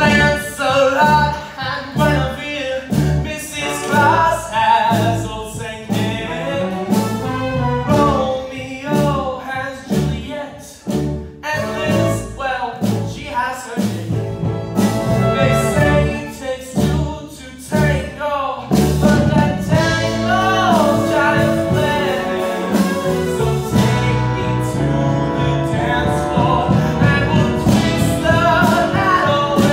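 Live show tune: a male singer on a microphone over an accompaniment with brass and a steady beat.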